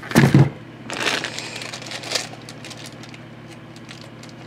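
A plastic wire keycap puller worked onto a mechanical keyboard's keycaps: a knock, then two short scraping handling noises and a few light plastic clicks.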